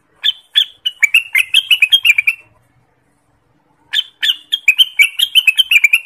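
Orange-spotted bulbul (cucak wilis) singing: two phrases of rapid chirping notes, each about two seconds long, with a pause of a second and a half between them.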